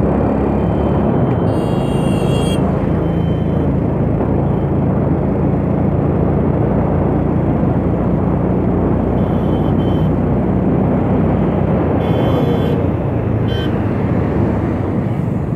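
Motorcycle engine running while riding, under heavy wind rush on the microphone. A few short high-pitched sounds come through about 2, 10 and 12 seconds in.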